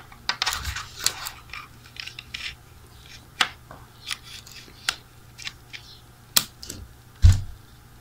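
Small clicks and taps of a MagSafe 1 charger's metal connector being handled at a MacBook and snapping magnetically onto its charging port, with a heavier knock a little after seven seconds.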